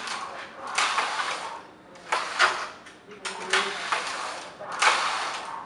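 Flat knitting machine carriage sliding back and forth across the needle bed in repeated swishing strokes, about four passes a little over a second apart.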